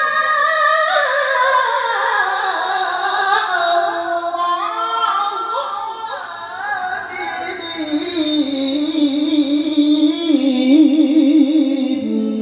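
Male qari's Quran recitation in melodic tilawah style: one long ornamented melisma without a breath. It starts on a high held note and winds gradually down to a low note held with vibrato near the end.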